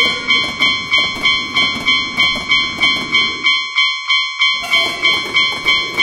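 Railroad crossing warning bell ringing its steady 'kan-kan' at about three strikes a second. Under it, a passing train rumbles and fades out about three and a half seconds in, and a second train starts rumbling past about a second later.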